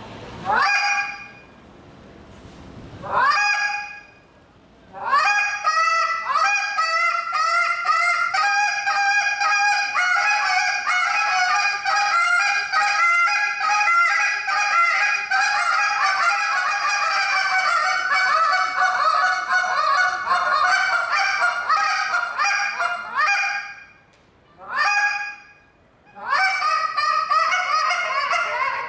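Goose call blown by hand: a few single honks, then a long, rapid run of short honking notes, a brief pause about three-quarters through, one more honk, and the run of calling starting up again near the end.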